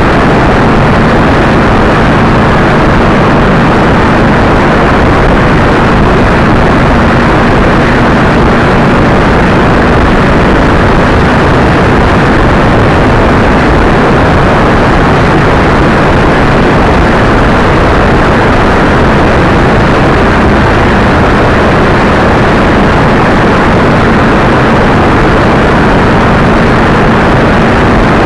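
Steady, loud wind noise on the microphone of a motorcycle-mounted camera at highway speed, with the motorcycle engine droning steadily underneath.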